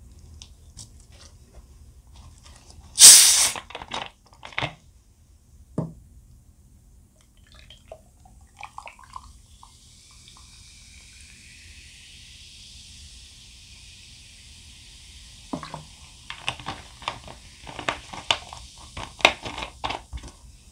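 Close-miked eating sounds: a loud crunchy bite about three seconds in, then soft chewing and scattered clicks. A steady hiss runs through the middle, and a quick run of wet smacking and crunching clicks comes near the end.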